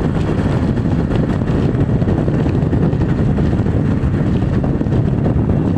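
Motorcycle running steadily at road speed, its engine mixed with a constant rush of wind on the microphone.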